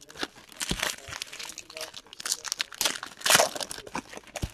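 Crinkling of torn foil trading-card pack wrappers being handled, in irregular bursts, loudest about three seconds in. A couple of dull knocks come from the cards or hands against the table.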